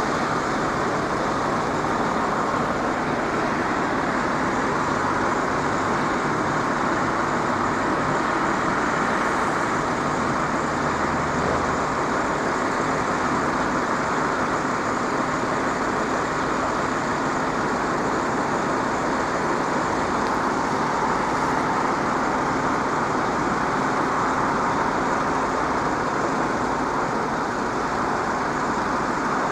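Steady road-traffic noise: an even rush of vehicle sound with no distinct events and no train passing.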